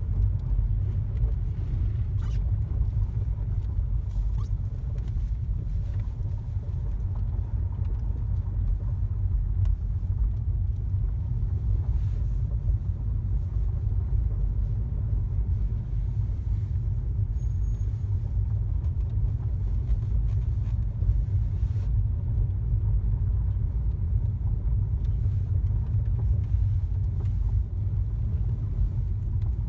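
Steady low rumble of a car on the move, road and engine noise, with a faint steady hum and a few light clicks.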